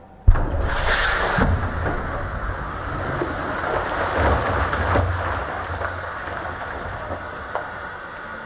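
A 500 ml plastic pop bottle, filled with compressed air under water in a dustbin, ruptures with a sudden sharp bang about a quarter of a second in. The water it throws up comes down as a heavy splashing downpour that slowly fades.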